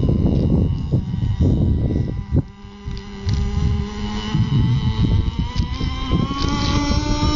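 Engine of a CEN Gray Thunder GP RC racing boat running, with wind buffeting the microphone. Its pitch climbs over the last couple of seconds as the boat speeds up, after a brief lull about two and a half seconds in.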